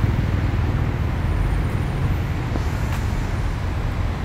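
Steady low rumble of a motor vehicle running, with no rise or fall.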